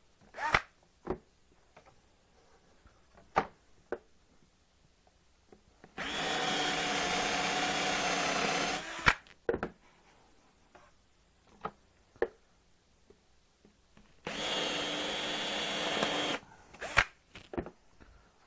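Cordless drill with a half-inch Forstner bit boring holes in the corners of a dry-erase board: two steady runs, about three seconds and then about two seconds, with knocks and clicks of the board and drill being handled between them.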